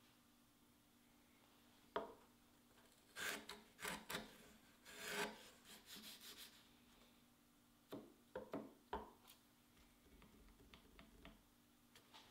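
Small metal router plane set down on a wooden half-lap joint with a click, then a few short scraping cuts as its blade shaves the cheek of the lap. Clicks and light knocks follow as the plane is handled on the wood.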